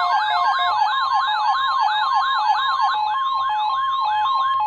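Electronic alert siren from an emergency weather alert receiver: a fast sweeping wail, several rising sweeps a second that slow down, over two alternating steady beep tones. The sweeping fades near the end, leaving the alternating two-tone beeping.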